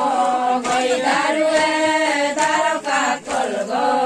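A group of voices singing a ponung chant in unison, the song of the Adi circle dance. The notes are held in phrases of about a second, with brief breaks between them.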